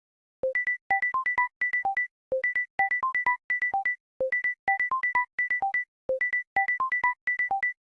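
Fanmade Samsung Galaxy-style phone ringtone: a quick synthesized pattern of short electronic pips, one low note followed by a rapid run of mostly high notes, looping four times.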